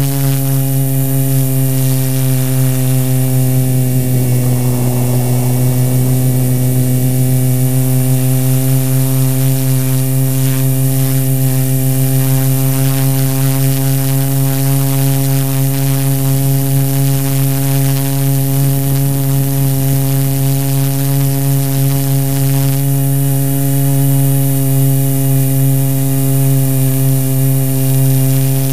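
Multirotor drone's electric motors and propellers humming steadily at a nearly constant pitch, picked up by the drone's own onboard camera.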